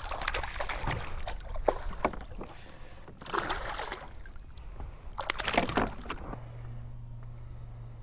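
A hooked smallmouth bass splashing at the surface beside a kayak as it is landed, in several separate bursts of splashing. A steady low hum begins about six seconds in.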